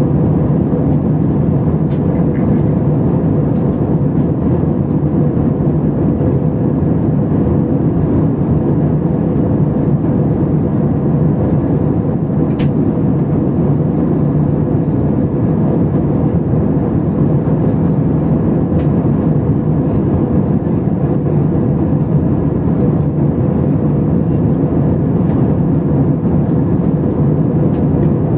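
Airbus A320 cabin noise in flight: a steady roar of jet engines and airflow with a constant low hum. A few faint clicks are heard over it.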